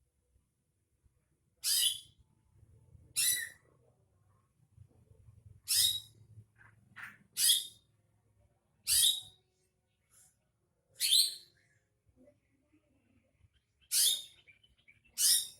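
Cucak ijo (greater green leafbird) calling: eight short, sharp, high notes spaced one to three seconds apart. This is lure song meant to prompt a kept leafbird to sing.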